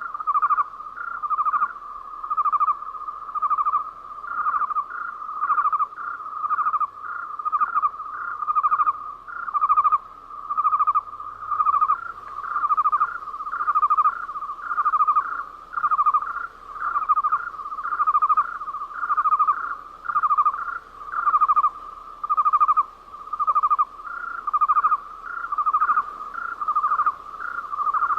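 Cricket chirping from an anime night-ambience sound effect: an even run of trilled chirps at one fixed, rather low pitch, about three chirps every two seconds without a break.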